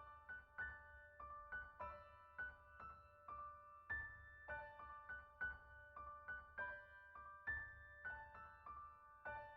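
Soft background music: a piano or electric piano picking out a repeating pattern of bright notes, about two a second, over a low pulse.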